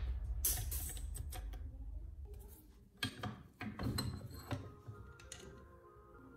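Small clicks and scrapes of hand work at a metal bench vise as a stripped spark plug's ceramic insulator is handled and freed from the jaws, with a cluster of sharp clicks a few seconds in and quieter toward the end.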